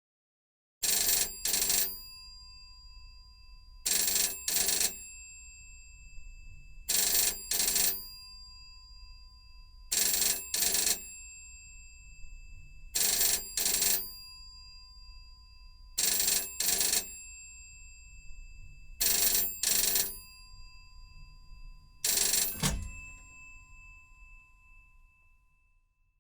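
A telephone ringing in pairs of short rings, a double ring about every three seconds, eight times over. A sharp knock cuts into the last ring, and a lingering tone then fades out.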